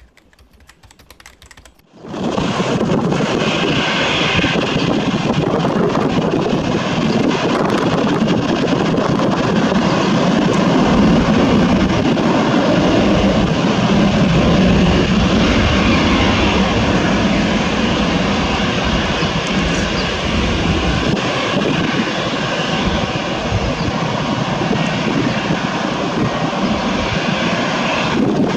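Boeing 737-800 taking off, its CFM56-7B turbofan jet engines at takeoff thrust. A loud, steady jet noise begins about two seconds in and holds, swelling slightly midway.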